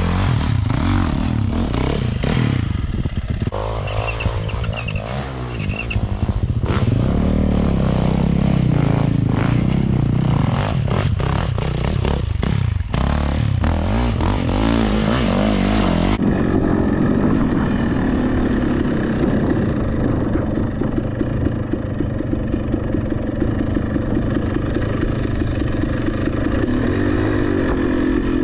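Dirt bike engine running under load on a trail, its pitch rising and falling with the throttle, with frequent clattering knocks over the first half. About 16 seconds in, the sound changes abruptly to a duller, steadier engine note.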